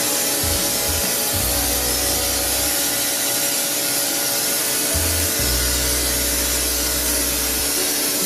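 Pressure washer running steadily, its hissing spray of cleaning liquid jetting from a foam-bottle attachment on the gun, with a low motor hum that drops in and out.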